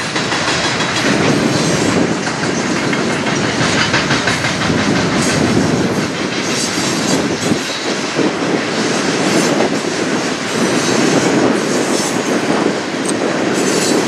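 Coal hopper cars of a freight train rolling past, a steady loud noise of steel wheels running over the rails.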